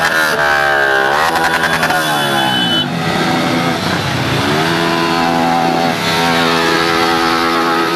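Several motorcycles and scooters passing close by in a convoy, their engines rising and falling in pitch as they rev and go past, then steadier from about halfway through.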